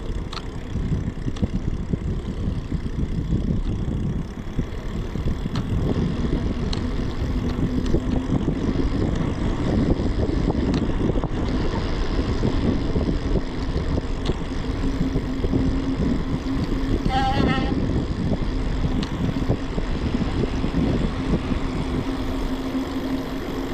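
Wind buffeting a handlebar-mounted camera's microphone and tyre rumble from a bicycle riding along a road, a steady dense rumble with a low hum that joins a few seconds in.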